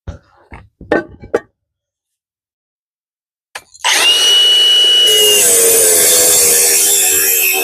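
A few short knocks, then about four seconds in an angle grinder starts with a steady high motor whine and cuts into a roof tile with a loud, gritty grinding noise.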